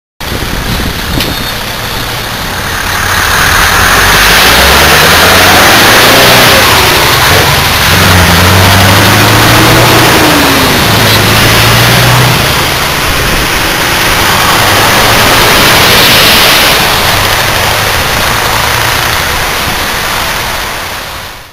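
Scania V8 diesel truck engine pulling away under load, its low note stepping up and down through gear changes in the first half, under heavy wind and road noise.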